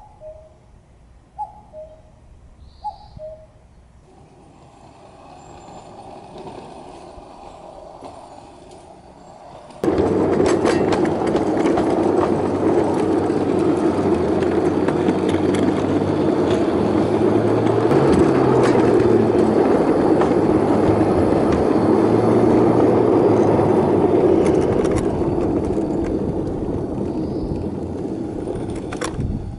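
A bird repeats a descending two-note cooing call a few times. About ten seconds in, a ride-on 5-inch gauge railbus running along the garden railway track sets in abruptly, a loud steady rumble of wheels on rail with scattered clicks that eases slightly near the end.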